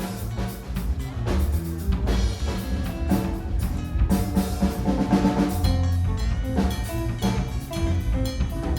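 Live instrumental jam by a rock trio: a drum kit driving a steady beat under bass and guitar.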